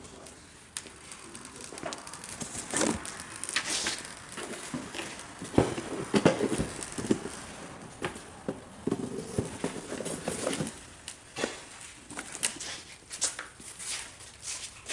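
Workbench handling noise: plastic covering film crinkling as it is cut and laid onto a model airplane, with irregular light taps and knocks.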